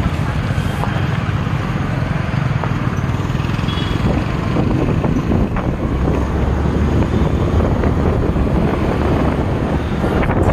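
Wind buffeting the microphone while travelling in a moving vehicle, with a steady low engine and road rumble underneath.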